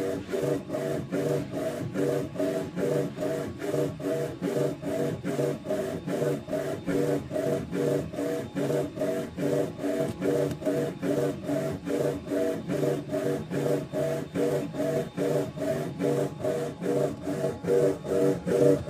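Small roll-fed UV printer printing, its print-head carriage shuttling back and forth: a steady motor whine that dips and returns about three times a second as the carriage reverses at each end of its pass.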